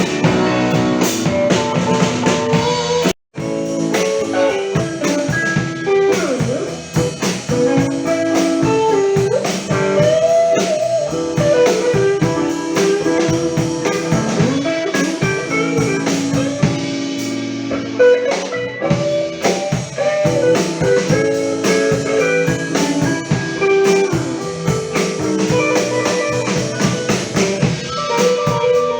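Live band playing blues: a guitar lead with bending notes over a drum kit. There is a brief break in the sound about three seconds in.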